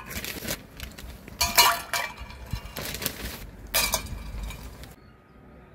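Dishes and utensils clinking and clattering in several short bursts, the loudest about a second and a half in.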